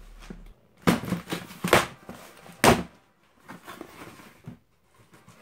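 Cardboard shipping box being torn open by hand: three loud ripping sounds about a second apart, then quieter rustling as the flaps are pulled back.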